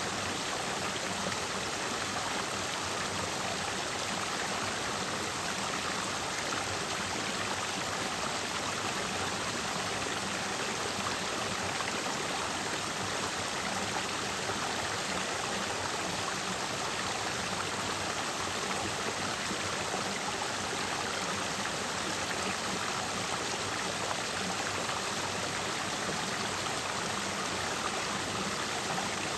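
Clear mountain stream flowing and splashing over rocks, a steady rushing sound without pauses.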